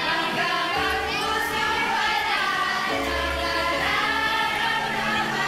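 A crowd of young voices singing a song together.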